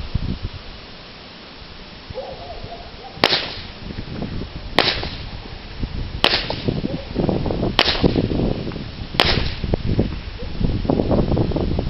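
Five .22 Long Rifle shots from a Mossberg Plinkster rifle, fired at an even pace about a second and a half apart.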